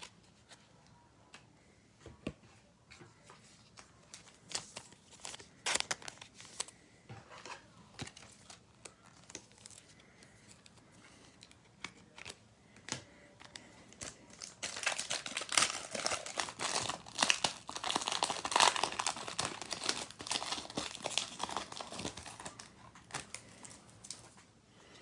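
Foil trading-card pack wrapper being handled and torn open: scattered light rustles and clicks at first, then a dense stretch of crinkling through most of the second half.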